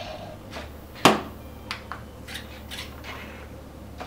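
Spin Master Legendary Yoda animatronic toy moving its arm and head: one sharp click about a second in, then several fainter clicks and soft mechanical whirs from its motors.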